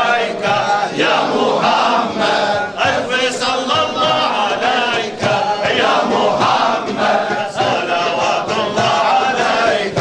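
A group of men chanting a Sufi devotional litany (wird) together, with lead voices on handheld microphones and the crowd singing along without a break.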